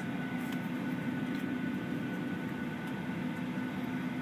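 Steady cabin hum and hiss inside a Boeing 737-800 airliner, with a few faint, steady whining tones above it.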